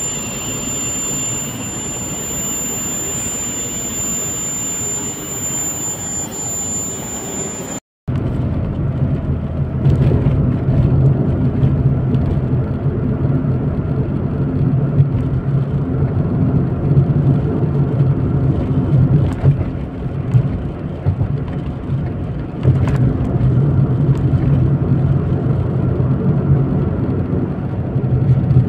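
A steady mechanical noise with a thin high whine for about the first eight seconds. Then, after a sudden cut, a small car's engine hum and road noise are heard from inside the cabin while it drives, with a few light knocks.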